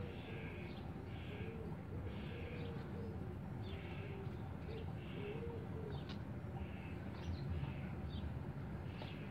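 Birds calling outdoors: a short high call repeated a little more than once a second, with low rising-and-falling notes through the first half, over a steady low rumble.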